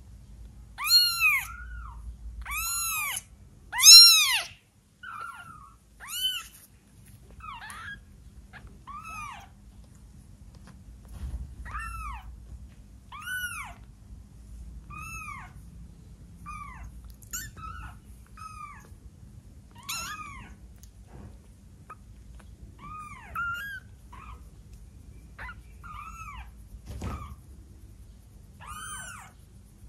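A 12-day-old kitten mewing again and again: short, high-pitched cries, each rising and falling in pitch, one every second or two, loudest in the first few seconds.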